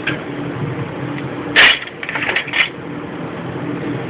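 A sharp plastic-and-metal clack about a second and a half in, followed by two lighter clicks, as a circuit card is unlatched and pulled out of a Siemens SIBAS 16 PLC card rack. A steady background hum runs underneath.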